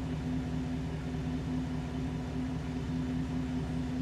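Pickup truck engine idling steadily: an even, low hum with a held tone and no change in pitch.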